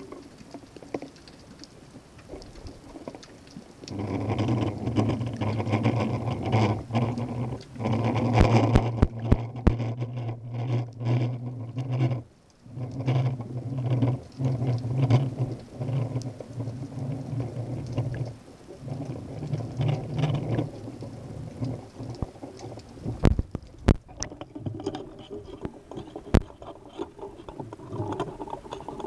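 Underwater sound in a harbour: a low, steady engine hum with overtones that comes in a few seconds in, drops out briefly, and fades away past the middle. Scattered sharp clicks are heard throughout.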